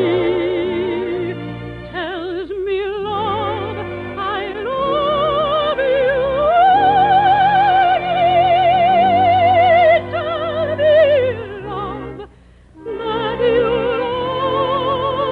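Operatic singing with orchestra in a 1953 radio broadcast recording. A voice with a wide vibrato holds a long high note through the middle, then the music drops away for a moment near the end before going on.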